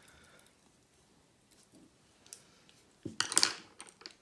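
Paintbrushes set down on a plastic watercolour palette: a short clatter of clicks about three seconds in, after a few faint ticks.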